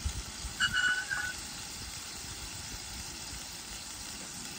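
Flat iron steaks frying in bacon grease in a hot skillet on a propane camp stove: a steady sizzle. A short high chirp sounds about a second in.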